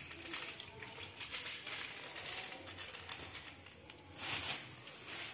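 Cooking oil heating in a metal wok, with irregular light clicks and crackles around a wooden stick standing in it. There is a brief louder rush of noise about four seconds in.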